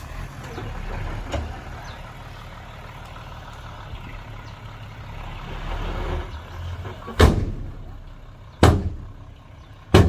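Heavy earthmoving machinery with its diesel engine running low and steady, broken by three loud, heavy bangs in the second half.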